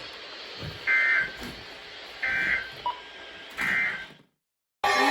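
Three short, warbling Emergency Alert System data bursts, evenly spaced about 1.4 s apart over a faint hiss: the end-of-message code that closes a severe thunderstorm warning. The audio then cuts to a moment of silence, and a loud new signal starts abruptly near the end.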